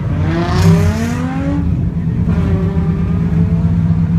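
Drift car engine running, heard from inside the cabin, revved up twice, each time rising in pitch; the first rev carries a loud rush of noise.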